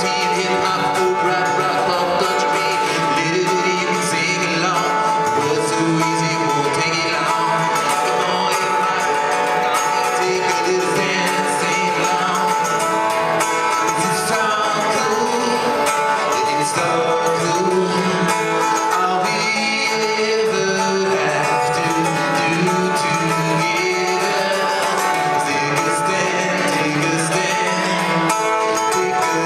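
Live band music with strummed guitar and a male voice singing, steady throughout.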